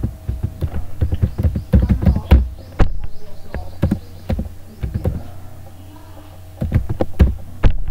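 Typing on a computer keyboard: irregular runs of key presses, heard as dull clicks and thumps, over a low steady hum.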